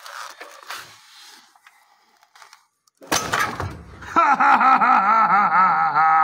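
A sudden heavy metallic clunk and scrape about three seconds in, as the truck's gearbox goes home onto the engine. It is followed by a man's loud, wordless cry with a wavering pitch, held for about two seconds.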